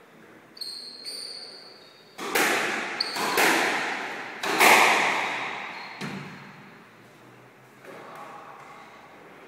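Squash rally: two short, high sneaker squeaks on the court floor, then three loud, sharp bangs of the squash ball off racket and walls about a second apart, each echoing around the court, with a fainter hit a little later.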